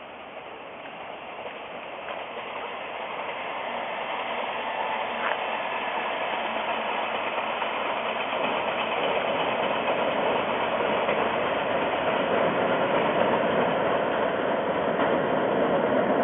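Odakyu Line electric train approaching, its running noise growing steadily louder until it is close by near the end.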